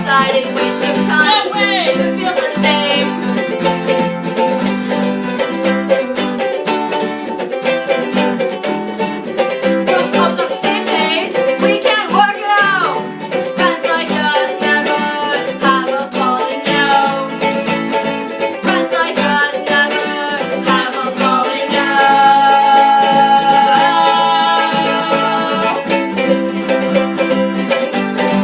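A band's recorded song playing, with plucked string instruments; it grows fuller and louder about three-quarters of the way through.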